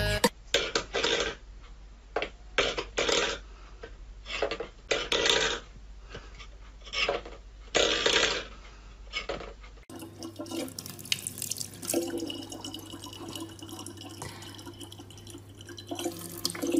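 A string of short, irregular knocks and scrapes a second or two apart. Then, about ten seconds in, a thin stream of water runs from a small tap into a plastic bottle over a steady low hum.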